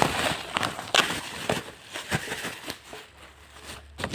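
Packaging being handled and torn open: crinkling and rustling with irregular sharp clicks and crackles, easing off about three seconds in.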